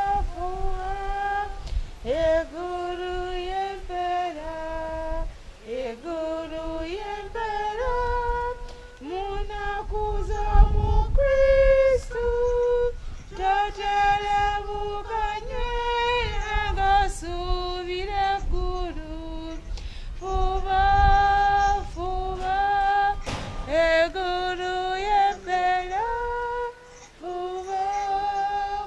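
A woman's voice singing a slow hymn melody in held notes that step up and down, each note sliding in slightly at its start.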